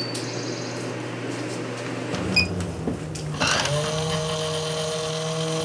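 Maxxfan Deluxe roof vent fan's electric motor running, a steady whine that comes in about three and a half seconds in, rising slightly as it gets up to speed, after a low steady hum.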